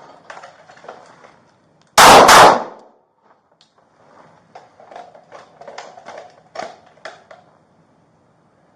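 Two gunshots fired in quick succession, a fraction of a second apart, loud enough to overload the recording. A few seconds later comes a run of much quieter sharp clicks and knocks.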